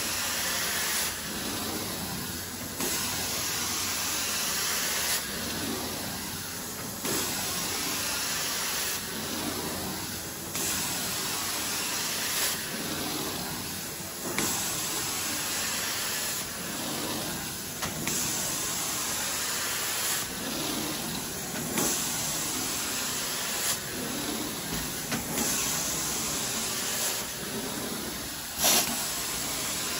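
Carpet-cleaning floor wand extracting a carpet: a steady suction hiss, with the spray hiss switching on and off every second or two as the wand is stroked back and forth.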